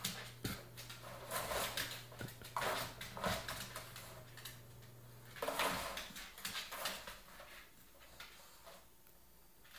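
An English bulldog and a Boston terrier scuffling around a plastic laundry basket on a hard floor: an irregular run of clicks, knocks and rustles, busiest in the first two-thirds and tailing off near the end.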